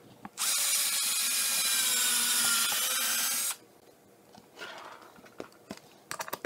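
Cordless drill running under load for about three seconds, boring into the wood of a plywood crosscut sled, its pitch sagging slightly as it bites. A few light handling knocks follow.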